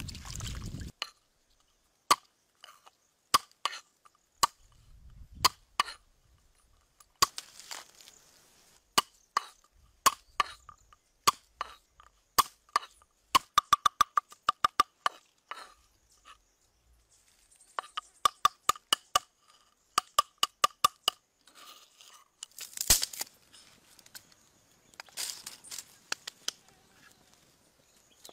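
Large knife chopping garlic on a wooden cutting board: sharp knocks with a ringing blade, at times in quick runs of several a second.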